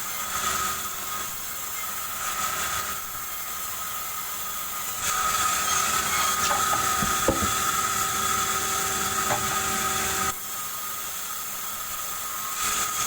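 Power saw running steadily with a constant high motor whine, turning louder and harsher while cutting wood from about five seconds in to about ten seconds, and again near the end.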